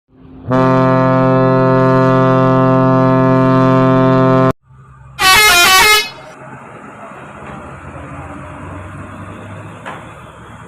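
Multi-tone 'telolet' air horn on a heavy vehicle sounding one loud, held chord for about four seconds, then, after a short gap, a brief rapid warbling horn burst. Engine and road noise of the passing vehicle follows.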